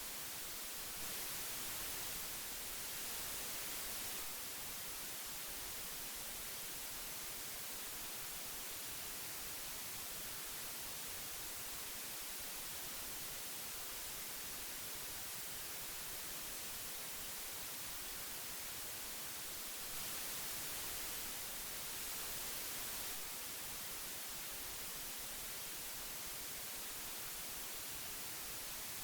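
Old tape hiss: a steady, even hiss, strongest in the high end, swelling slightly twice, about a second in and again around twenty seconds in.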